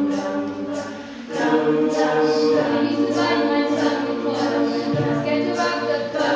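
Mixed-voice a cappella choir singing held chords, with short hissing accents keeping a beat about twice a second. The sound thins out about a second in, then the voices come back in fuller and louder.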